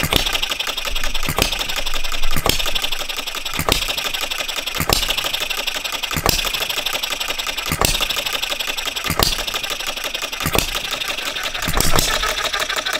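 Philip Duclos Odds 'n Ends model hit-and-miss engine running on cast iron piston rings. It fires with a sharp pop about once every second and a quarter and coasts between firings with a light, even mechanical clatter.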